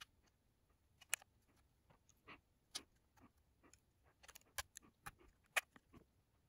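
Small screwdriver prying at the snap-fit seam of an I-O DATA external hard drive's plastic case: faint, scattered clicks and scrapes of metal on plastic. The sharpest click comes a little past halfway.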